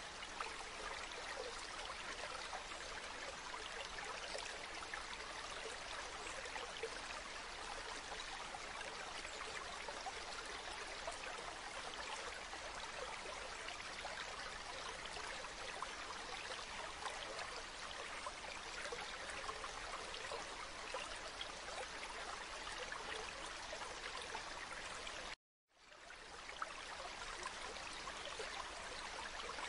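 Stream water running in a steady babble. It cuts out suddenly about 25 seconds in and fades back up within about a second.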